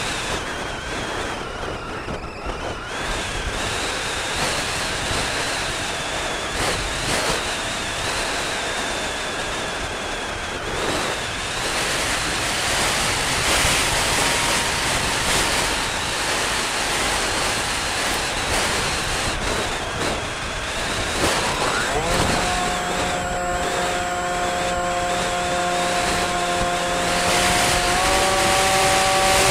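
Wind rushing over the microphone of a camera on a small aircraft in flight. About three-quarters of the way through, the aircraft's motor speeds up with a short rising whine, then holds a steady hum that steps up slightly in pitch near the end.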